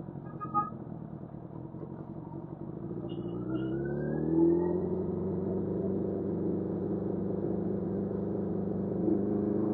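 Suzuki GSF600 Bandit's inline-four engine under way, its pitch rising as it accelerates about three to five seconds in, then running steadily at the higher speed. It is heard through a Bluetooth earbud microphone, so the sound is thin and muffled at the top.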